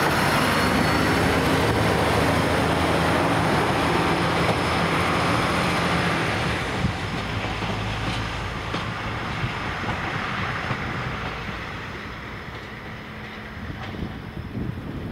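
SA109-001 diesel multiple unit pulling away: its engine and wheels loud at first, then fading steadily as it goes, with a few sharp clicks of wheels over rail joints in the second half.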